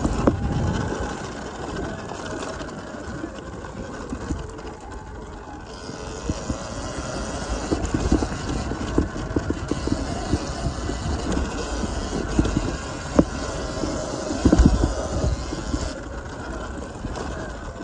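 Surron Ultra Bee electric dirt bike being ridden over a dirt trail: steady rumbling ride noise with repeated knocks and thumps from bumps, the heaviest about fourteen seconds in.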